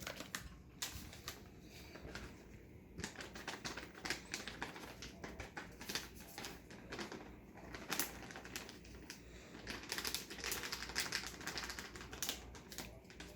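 Plastic bag of shredded cheddar cheese crinkling and rustling as the cheese is shaken out over the casserole: a quick run of small crackles, a few at first, then dense from about three seconds in.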